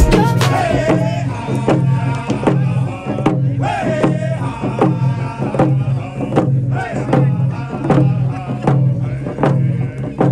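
A frame hand drum struck with a stick in a steady, even beat, with voices singing along.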